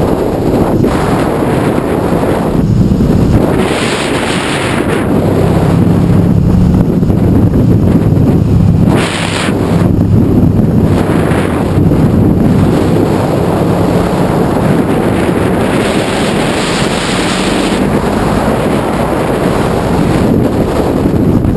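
Heavy wind noise on the microphone of a Honda ST1100 Pan European motorcycle riding at speed. The steady drone of its V4 engine shows through underneath, most clearly in the middle stretch.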